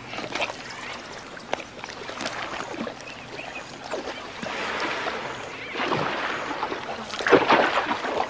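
Water splashing and sloshing in a shallow pool as crocodiles thrash while tearing apart and swallowing a carcass in a feeding frenzy, with small knocks in between and several louder splashes near the end.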